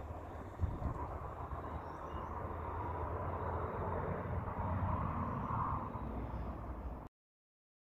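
Steady outdoor background noise: a low rumble with a band of hiss above it, and one short click about half a second in. The sound cuts off abruptly shortly before the end.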